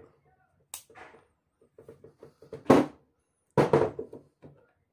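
Metal parts of a homemade AR-22 pistol being handled and joined: a sharp click about a second in, small ticks, then two heavy knocks with a short ring as the upper receiver is set onto the lower receiver.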